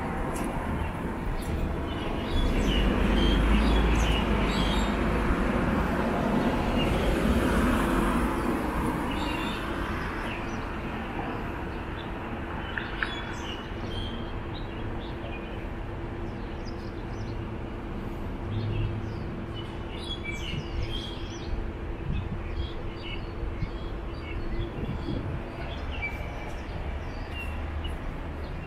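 A motor vehicle passing close by, loudest a few seconds in and fading away by about ten seconds. After that, birds chirp now and then over a steady street background with a faint steady hum.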